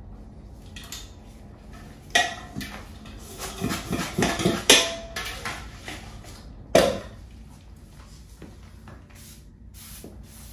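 A stainless steel B&G hand sprayer being handled and sprayed. There are metallic knocks about two seconds in and again near seven seconds, with short hissing spray bursts in between.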